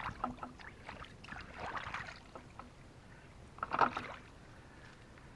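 Irregular splashing and scraping of water and wet debris as a clogged driveway drain is cleared out by hand, with the loudest splash about four seconds in.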